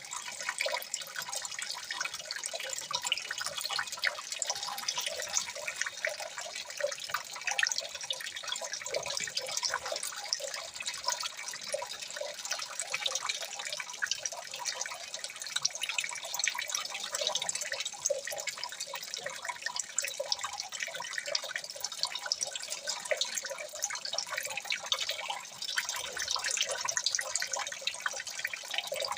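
Water trickling and dripping, a steady dense patter of small irregular splashes that goes on without a break.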